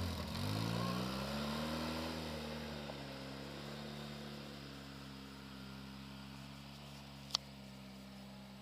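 700cc Polaris ATV engine accelerating away, its pitch rising over the first couple of seconds, then running steady and fading as the quad moves off. A single sharp click about seven seconds in.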